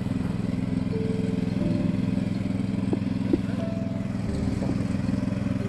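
A small engine running steadily, with a couple of light clicks about three seconds in.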